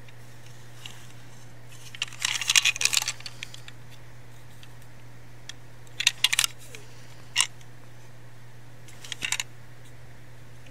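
Small plastic toy locomotive (a Daiso petit-train EF66) handled and turned over in the fingers, its plastic body and wheels clicking and rattling in four short bursts, the longest a couple of seconds in. A steady low hum lies underneath.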